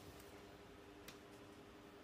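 Near silence: room tone with a steady faint hum and two faint clicks, near the start and about a second in.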